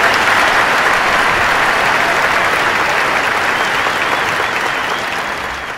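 Large arena audience applauding, the clapping dense and steady, fading out near the end.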